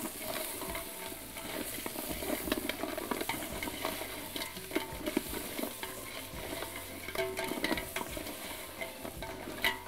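A wooden spoon stirring whole crabs with onions in a large aluminium pot as they fry in oil and butter: a steady sizzle with frequent clicks and scrapes of shells and spoon against the pot, a louder clatter near the end.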